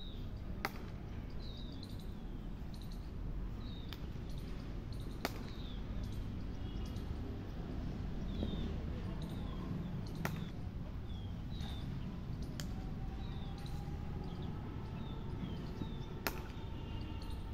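Sharp cracks of a cricket bat hitting a ball, four times about five seconds apart, over a steady low rumble. A bird calls again and again in short falling chirps throughout.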